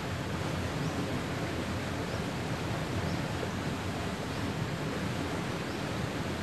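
Fast-flowing river current rushing steadily, a continuous noisy rush of water.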